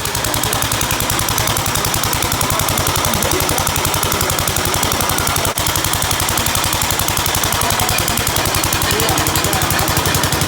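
Gravely Model D walk-behind tractor's single-cylinder engine running steadily, with a rapid, even firing beat and a momentary drop about halfway.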